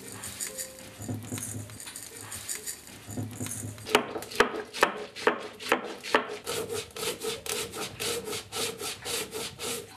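Black peppercorns being crushed on a flat grinding stone with a stone roller. From about four seconds in, the roller is pushed back and forth in a rhythmic grating, about two strokes a second.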